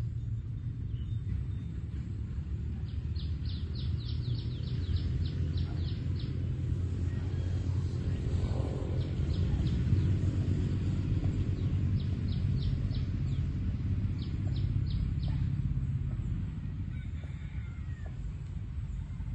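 Steady low outdoor rumble, with several runs of quick high-pitched chirps, about four a second, from a small bird or insect.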